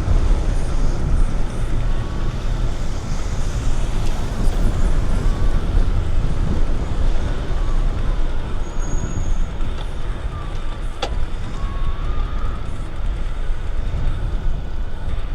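Steady wind noise on a windscreened DJI Mic 2 mounted above the front fork of a moving bicycle, mixed with low rolling noise from the ride. A single sharp click about eleven seconds in.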